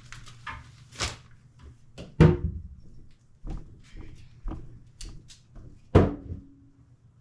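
Kitchen clatter: a run of knocks and thuds from cupboard doors and dishes being handled. The two loudest come about two seconds in and about six seconds in, the last with a short ring.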